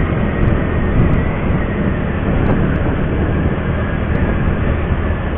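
Strong wind noise buffeting the action camera on a moving Yamaha scooter, a steady rumbling rush with the scooter's engine humming underneath.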